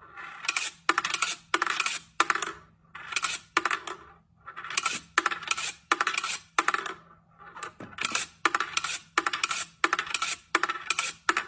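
A rapid series of short, sharp clinks, coming in clusters at roughly two a second with brief silences between them.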